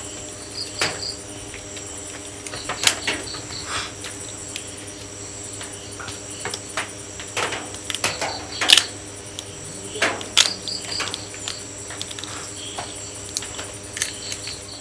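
Crabs being cleaned by hand: shells cracking and snapping as the top shells are prised off and the bodies broken apart, in irregular sharp clicks, the loudest about nine seconds in. Crickets chirp steadily in the background.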